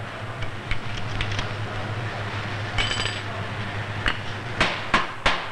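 Clicks and knocks of metal type and page forms being worked in a hot-metal composing room, over a steady low hum. A short metallic clink rings about three seconds in, then several sharp, loud knocks come in quick succession near the end.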